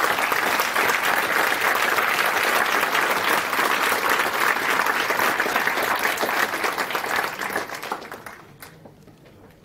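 Audience applause, a dense steady clapping that dies away over the last couple of seconds.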